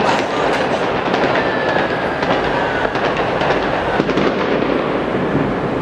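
Fireworks going off: a dense, continuous crackle of many small pops and bangs.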